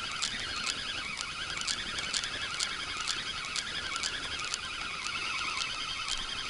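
Spinning reel on a feeder rod being wound steadily, a fish on the line. It makes a continuous whirring chatter with a short click about twice a second as the handle turns.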